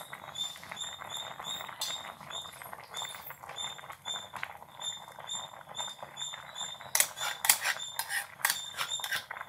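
A steel ladle stirs and scrapes in a clay pot of boiling curry, with a run of louder clattering strokes near the end. Behind it, a short high chirp repeats evenly about three times a second.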